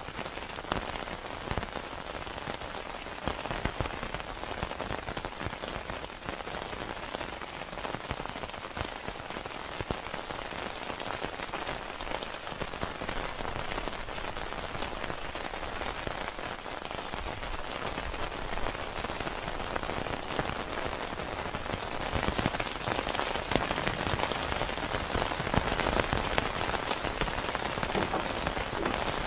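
Steady rain falling, an even hiss without a break; it grows a little louder and brighter about two-thirds of the way through.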